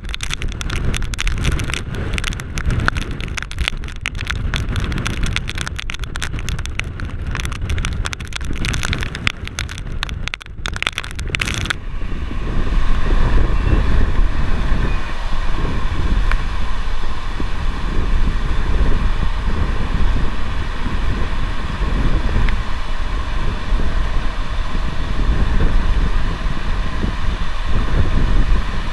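Strong, gusty wind buffeting the microphone near a large tornado, with crackling. About twelve seconds in, it cuts suddenly to inside a moving vehicle: louder, steady engine and road noise with wind against the car.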